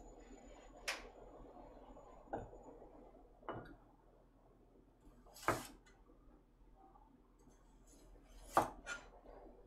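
Kitchen knife slicing garlic cloves on a cutting board: about six sharp, separate knocks of the blade hitting the board at irregular intervals, the loudest about halfway through and another near the end.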